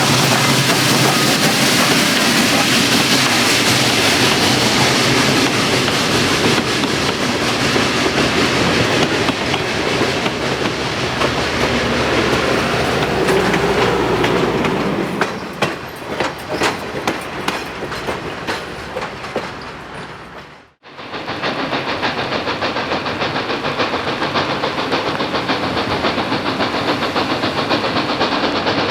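Steam locomotive working hard with loud exhaust from its stack, followed by a stretch of rapid clicking as its wheels roll over the rail joints. The sound drops out for a moment about two-thirds of the way through, then another steam locomotive is heard working hard.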